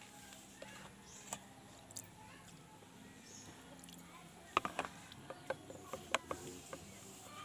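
Faint scraping and handling of a soot-blackened rice pot being scrubbed with wet sand by hand. A few light clicks early on give way to a cluster of sharp little knocks and clicks in the second half.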